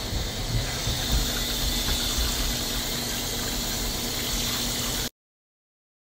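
Running water rinsing shampoo-lathered hair: a steady rush with a faint hum and some low knocks, cutting off abruptly about five seconds in.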